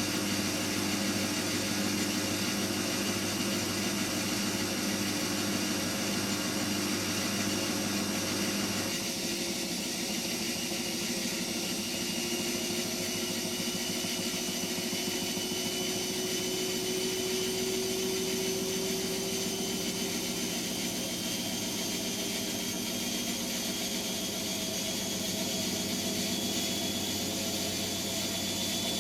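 Hotpoint washing machine's motor and drum running, with a whine that slowly rises in pitch as the drum speeds up. The low hum drops away about nine seconds in.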